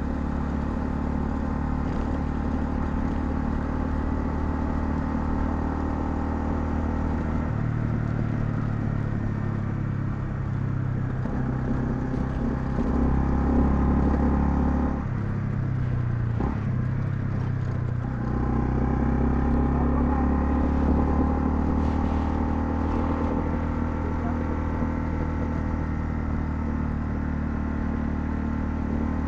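Honda CL250's single-cylinder engine running under way at a steady note. The engine eases off briefly about halfway through, then pulls again.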